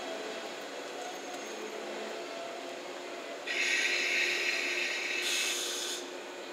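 JNR 117-series electric train coming to a stop, its equipment humming steadily. About three and a half seconds in, a loud hiss of released compressed air starts, shifts higher in pitch for its last part, and cuts off about six seconds in.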